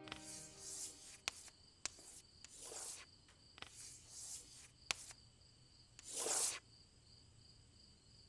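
Writing on a slate: a series of short scratching strokes with a few sharp taps, the loudest and longest stroke about six seconds in. Faint crickets chirp steadily underneath.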